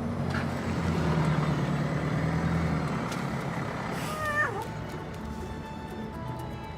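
A heavy vehicle's engine runs in street traffic, and a cat gives a single meow about four seconds in.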